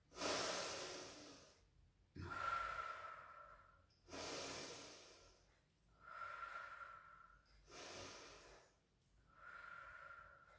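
A woman breathing slowly and audibly in and out while holding a neck stretch, about one breath every two seconds. Every other breath carries a faint whistle.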